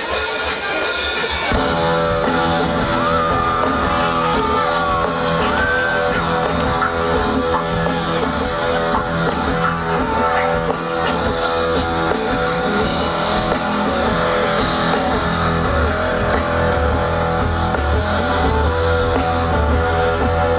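Live rock band playing through a PA, with electric guitars and drums. The full band comes in about a second and a half in.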